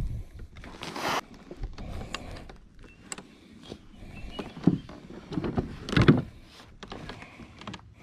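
Handling noise of fishing gear in a kayak: irregular knocks, clatters and scrapes, with a short rushing scrape about a second in and a few heavier thumps around the middle.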